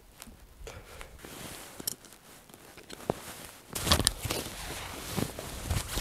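Rustling of a padded jacket and pulk harness straps as the harness is pulled on and adjusted, with a few small clicks. Louder and busier from about four seconds in.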